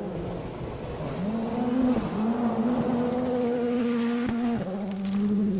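Skoda Fabia R5 rally car driven hard on loose gravel, its engine note held high over the noise of the tyres on the gravel. The note dips briefly about two seconds in and steps down near the end, as at gear changes.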